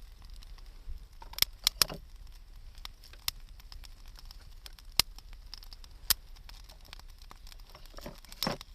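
Wood campfire burning, with scattered sharp pops and snaps of burning wood over a soft steady hiss.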